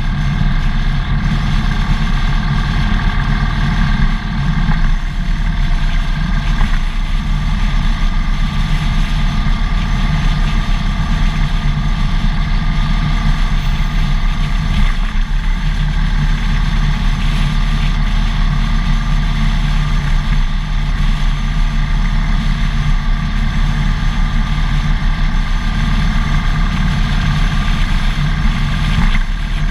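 Harley-Davidson FXDF Dyna's V-twin engine running steadily at freeway cruising speed, with wind and road noise over it.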